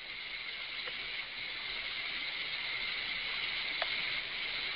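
Steady hiss with a few faint clicks: the background noise of a remote caller's open microphone on a video-call line.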